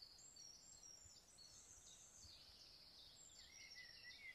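Near silence with faint, high-pitched bird chirping and twittering, a few short falling notes near the end.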